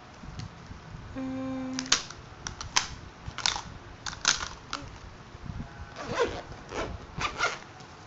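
Makeup items being handled in a cosmetics pouch: plastic compacts and small bottles clicking and clacking against each other in a string of short knocks. A short steady buzz comes about a second in.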